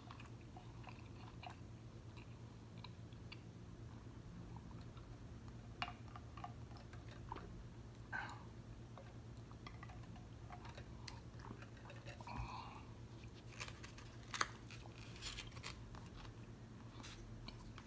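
Faint close-miked eating sounds: chewing, a sip and swallow from a cup, and scattered small mouth clicks, over a low steady hum.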